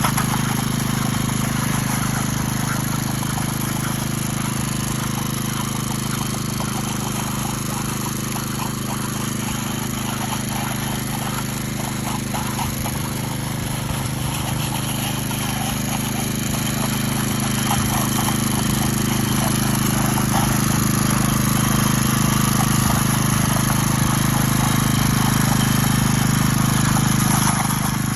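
Power trowel (concrete 'helicopter') running at a steady pitch, its engine humming as the rotating blades smooth the concrete surface.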